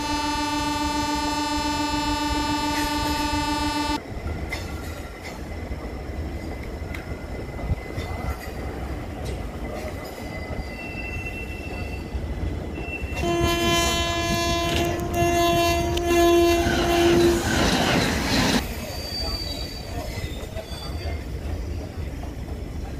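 Indian Railways passenger train running past on the rails with a steady low rumble. A long, steady horn blast sounds for about four seconds at the start, and a second horn blast of about four seconds comes a little past halfway through.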